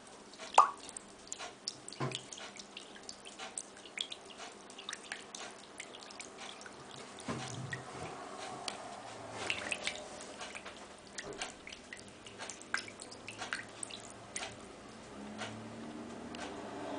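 Irregular small drips, splashes and light clicks in a porcelain sink as a butterfly agama scrambles through shallow water, with a sharp tap about half a second in. A low steady hum comes in near the end.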